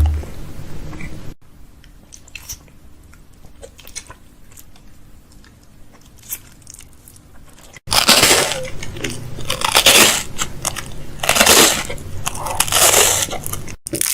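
Restocking sounds of packaged food and containers being handled: scattered light clicks and taps, then from about eight seconds in four loud crunching, rustling swells about a second apart.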